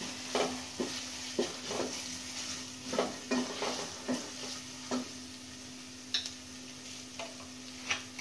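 Wooden spatula stirring and scraping fried onion and chili powder around a pot of hot oil, over a steady sizzle. The strokes come about twice a second for the first five seconds, then only twice more near the end.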